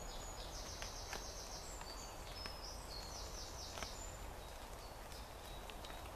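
Woodland songbird singing: two short, high, rapid trills a few seconds apart, with scattered single high whistled notes, over a steady low rumble and a few faint clicks.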